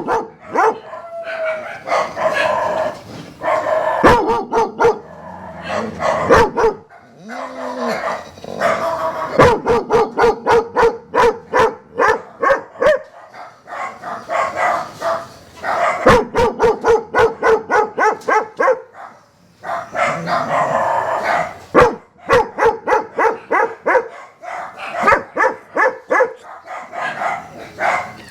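Dog barking in quick runs of repeated barks, several a second, with short pauses between the runs.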